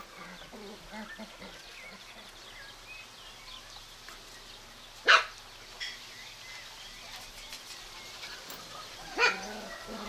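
Puppy giving two short, sharp yaps, about five seconds in and again near the end, over faint chirping of small birds.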